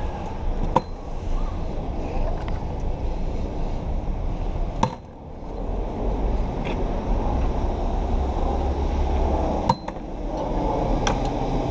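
City street noise heard while walking a sidewalk: a steady low rumble of passing traffic, with four sharp clicks spread through it.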